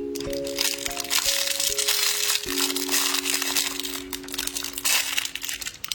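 Foil wrapper of a chocolate surprise egg being crinkled and peeled off, a dense crackling over background music of slow, held notes.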